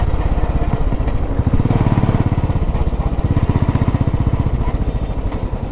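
Royal Enfield Bullet's single-cylinder engine running as the bike rides along, a steady, even low pulsing beat heard close up from the rider's seat.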